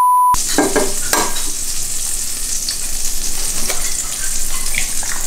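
A short steady test-tone beep right at the start, then an egg sizzling in oil in a frying pan, with a few knocks of the spatula against the pan in the first second or so.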